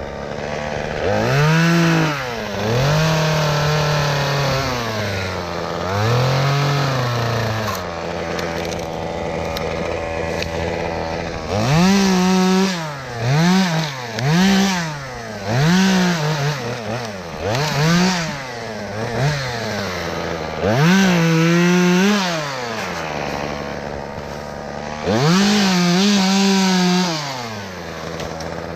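Two-stroke chainsaw revved up from idle to full throttle and back again and again, with a few longer surges, then a run of about six short quick blips in the middle, then two more long surges near the end.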